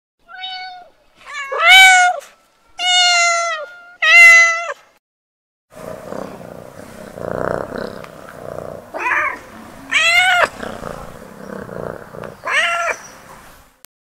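Kittens meowing again and again. There are four loud, pitched meows in the first five seconds, then after a short pause three more over a steady background noise.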